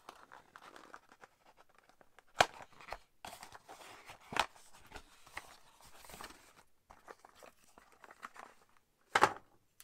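A small cardboard box being handled and opened: rustling and scraping of card, with a few sharp clicks and taps, the loudest about two and a half seconds in and again near the end.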